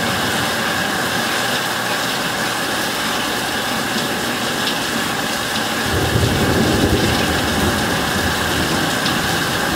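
Steady hiss of heavy thunderstorm rain. A low rumble of thunder swells about six seconds in and fades over the next couple of seconds.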